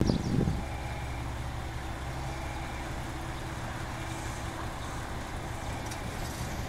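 Steady low hum of a train standing at a platform, its engine or on-board equipment running, with a brief bump at the very start.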